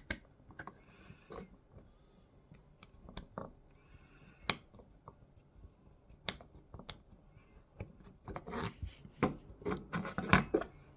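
Scattered light clicks and taps of small printed plastic parts and M3 bolts being handled and screwed together, with short rubbing scrapes, growing busier near the end.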